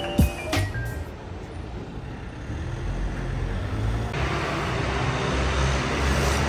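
City street traffic with a low engine rumble throughout. A motor scooter passes close, growing louder in the second half.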